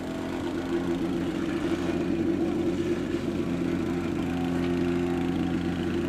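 Vibrating plate compactor's small petrol engine running steadily at a constant pitch while compacting an asphalt patch.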